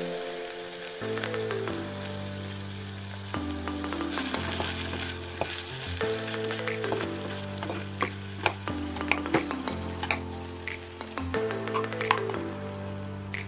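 Flaked tuna sizzling as it fries in oil in a metal pot while a spatula stirs and scrapes it, with several sharp clicks of the spatula against the pot in the second half. Background music plays underneath.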